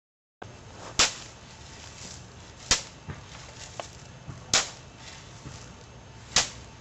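A shovel blade chopping into dirt: four sharp strikes, about two seconds apart, with a few lighter knocks between them.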